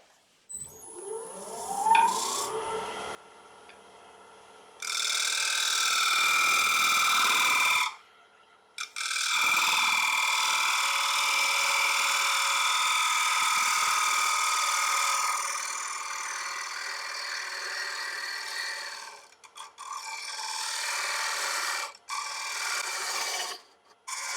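Wood lathe speeding up, its whine rising in pitch, then a gouge cutting the inside of a wet black locust bowl in long passes: a steady hiss with ringing tones. The passes break off briefly about 8, 19 and 22 seconds in.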